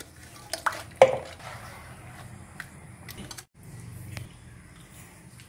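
A hand squishing and mixing thin batter in an aluminium pot, with soft wet squelching and a sharp knock about a second in. The sound cuts out briefly midway.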